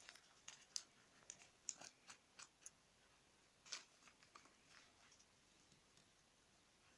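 Sheet of paper being folded and creased by hand: faint scattered crinkles and crackles, busiest in the first few seconds, one slightly louder crackle a little after halfway, then thinning out.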